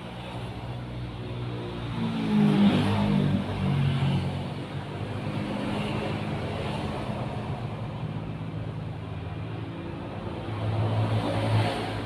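A motor vehicle engine running in the background, a low hum that swells louder about two to four seconds in and again near the end, as if vehicles pass by.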